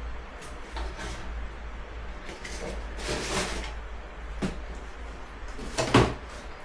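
Handling noises: a series of rustles, scrapes and knocks, with a longer scrape about three seconds in and the loudest knock near the end.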